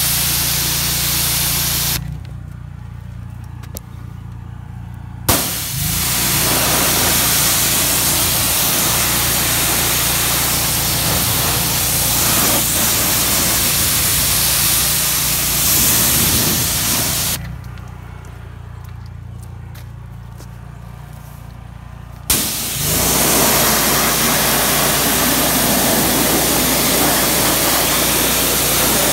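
Kränzle K1322TS electric pressure washer spraying a high-pressure water jet: a steady hiss over a low pump hum. The spray stops twice for a few seconds, leaving only the hum, and each time starts again with a sudden sharp burst.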